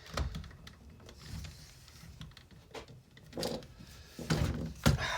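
Light clicks, scrapes and handling noise of a small hand tool being fitted against a gunked-up part inside an old Black & Decker drill, with a few louder knocks and a sharp click in the second half.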